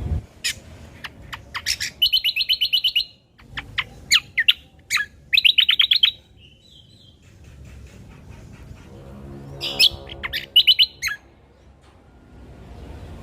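Cucak kombo (kecial kombo) singing: sharp, rising and falling chirps mixed with fast trilled phrases, in three bursts separated by short pauses. A lower, buzzy call comes in just before the last burst, about nine seconds in.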